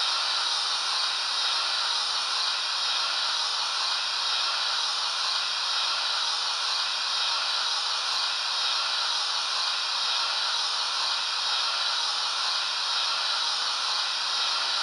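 Digital steam sound from the Loksound decoder in an Oxford Rail OO-gauge Dean Goods model locomotive, played through its on-board speaker: a steady hiss of escaping steam that cuts off abruptly near the end.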